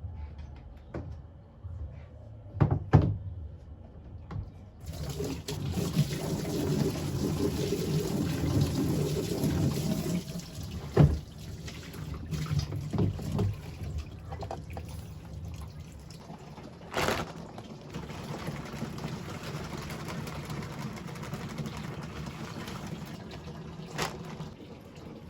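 Water running and filling a container, starting suddenly about five seconds in, with a few knocks and sharp clicks along the way.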